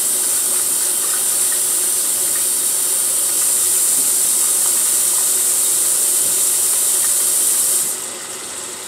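Butterfly-sliced tilapia frying in hot oil, a steady loud hiss that drops to a quieter sizzle about eight seconds in.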